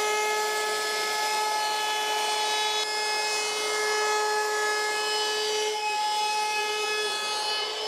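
18-volt cordless trim router running at full speed and cutting into a plywood panel: a steady high-pitched motor whine over the hiss of the bit in the wood.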